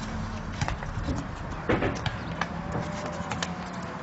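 Irregular sharp clacks of field hockey sticks hitting hard hockey balls on an artificial-turf pitch, with a short shout about two seconds in.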